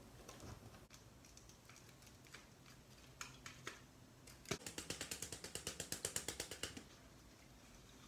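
Faint handling noise from repotting a pothos: a few scattered soft clicks, then about halfway in some two seconds of rapid, even clicking, about ten clicks a second.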